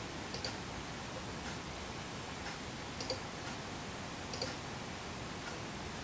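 Faint computer mouse clicks at irregular intervals, roughly one a second, over a steady hiss.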